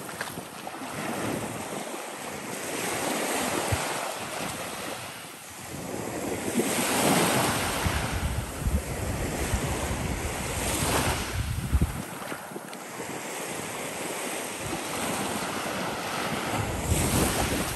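Small surf breaking and washing up a sand beach, swelling with each wave every few seconds, with wind rumbling on the microphone.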